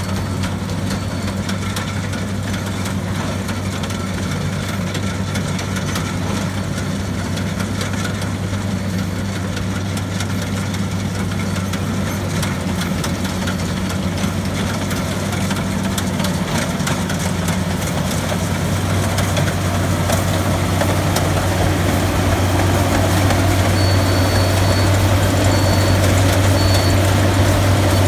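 Rice combine harvester's engine and threshing machinery running steadily as it cuts, a deep even hum that grows louder as the machine comes close. Three short high beeps sound near the end.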